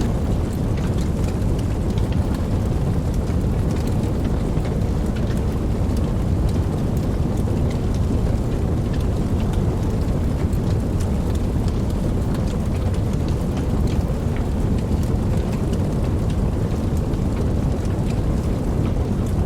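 Steady rain, a dense, even wash of sound with a heavy low rumble and many small droplet ticks scattered through it.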